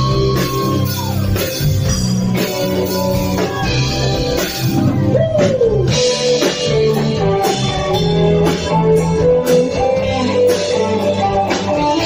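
Live rock band playing a slow ballad: an electric guitar plays a lead line with bent notes that slide up and down, over bass guitar and drum kit, with no singing.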